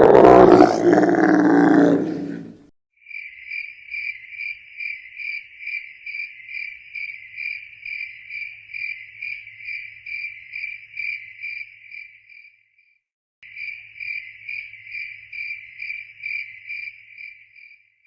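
A loud animal roar ends about two and a half seconds in. Then an insect, cricket-like, chirps in an even, high-pitched rhythm of about three chirps a second, breaking off briefly past the middle and resuming.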